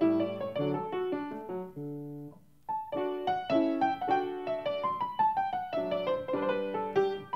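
Background solo piano music, a flowing run of notes that pauses on a held chord about two seconds in, fades briefly, then resumes.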